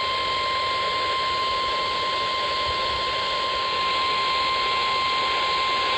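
NOAA Weather Radio warning alarm tone: a single steady 1050 Hz beep held without a break over radio static hiss. It signals that a weather warning, here a severe thunderstorm warning, is about to be read.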